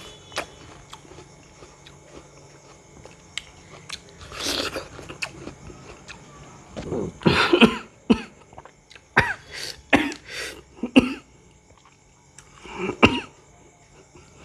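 Close-up eating sounds of raw fruit: crunchy bites and chewing in separate bursts, one about four seconds in, a longer spell around seven seconds, a quick run of several between nine and eleven seconds, and one more near the end.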